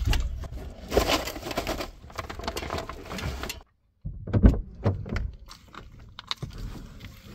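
A bicycle is pushed into a car's boot, its frame and wheels knocking and rattling against the boot. After a cut come a few short knocks and clicks as someone climbs in through the open driver's door into the seat.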